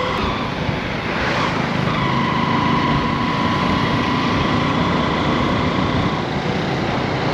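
Motorcycle on the move in road traffic: steady engine and road noise, with a faint steady whine for a few seconds in the middle.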